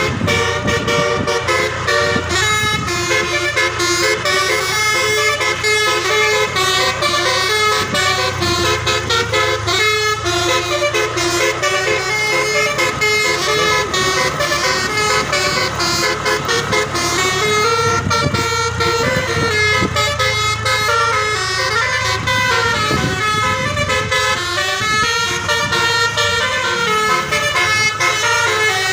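Bus telolet: the multi-tone air horns on a Putera Utama bus playing a fast melody without a break, the notes stepping up and down several times a second, with several horns sounding together.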